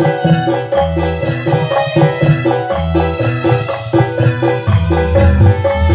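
Live instrumental music through a PA sound system: an electronic keyboard playing a melody over a quick, steady rhythm on kendang hand drums.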